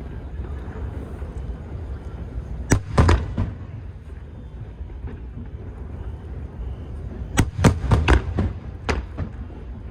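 Aerial firework shells bursting: a cluster of sharp bangs about three seconds in, then a quicker run of about half a dozen bangs a little before the end, over a steady low rumble.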